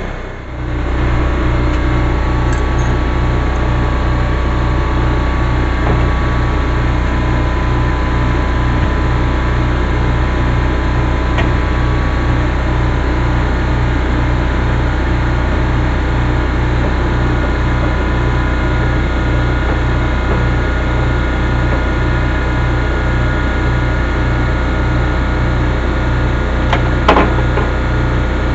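Steady machine drone with a low hum that pulses about twice a second, plus a short click near the end.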